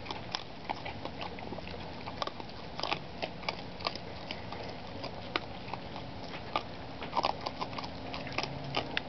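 Two young raccoons eating dry cat food close by: irregular crunching and clicking of kibble as they chew and pick at the pile.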